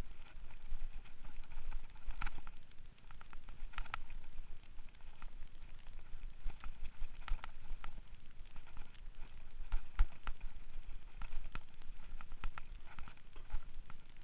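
Mountain bike rattling over a rough dirt trail: irregular sharp knocks and ticks from the bike and camera jolting on bumps, over a steady low rumble of tyres and wind on the microphone.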